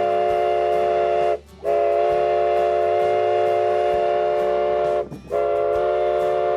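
Steam whistle of narrow-gauge K-36 steam locomotive No. 487 blowing long, steady blasts, each a chord of several notes, cut by two short breaks, signalling that the train is about to depart.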